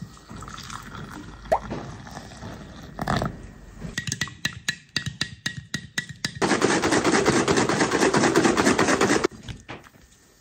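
Hot water poured into a glass mug of instant coffee, with a few plops and drips. About four seconds in, a metal spoon clinks rapidly against the glass as the coffee is stirred. Then comes about three seconds of louder, denser noise that cuts off suddenly.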